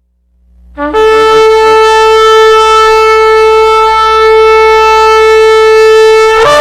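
A ram's-horn shofar blown in one long blast. About a second in it sputters briefly on a lower note, then settles on a single steady held note, and it breaks upward to a higher note near the end.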